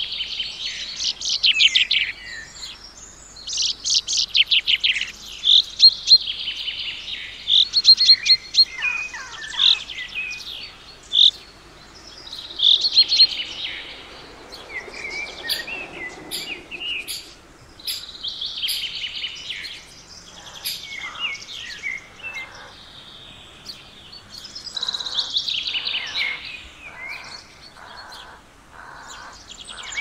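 Several small songbirds chirping and singing in dense, overlapping high-pitched phrases. In the second half a steady run of evenly spaced lower calls, about one a second, joins them.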